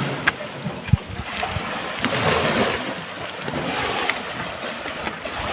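Sea waves washing in and out on the shore in swells a second or two apart, with wind on the microphone. Two short knocks come in the first second.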